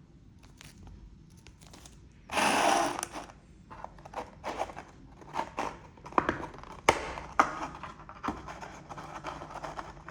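Product packaging being handled and opened by hand: a loud rasping rip lasting under a second about two seconds in, then rustling and a run of sharp clicks and taps.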